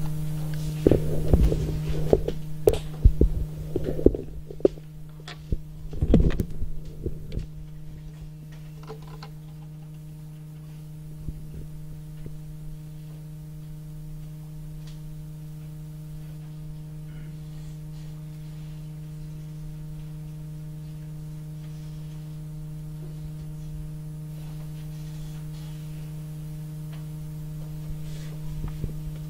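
Steady low electrical hum with evenly spaced overtones. During the first several seconds a scatter of knocks and thumps sounds over it, then only the hum remains.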